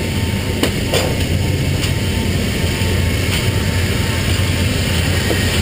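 C-17 transport aircraft running on the ground, a steady low drone with a high hiss heard inside its cargo hold. A few sharp knocks come in the first few seconds.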